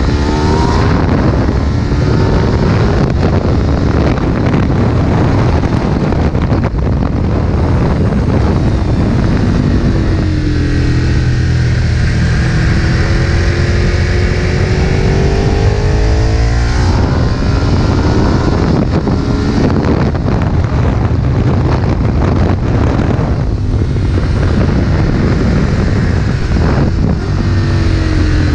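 Ducati 1098's L-twin engine under hard riding, its pitch repeatedly climbing and dropping with throttle and gear changes, over heavy wind rush.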